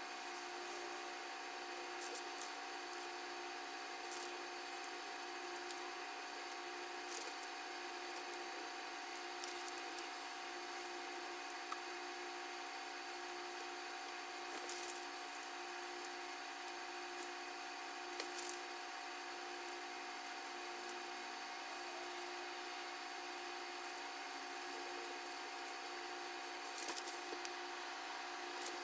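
Steady background hum with a faint hiss, with a few faint clicks now and then.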